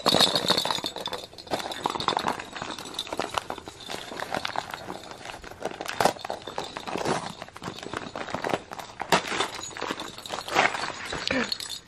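Gift-wrapping paper crinkling and rustling as a present is unwrapped by hand, in irregular crackly bursts.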